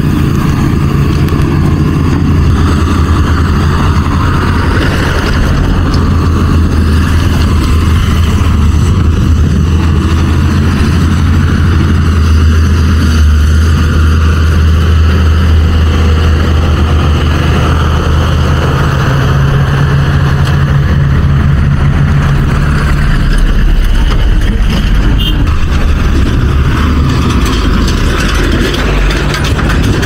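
Excavator's diesel engine running steadily with a loud, low note.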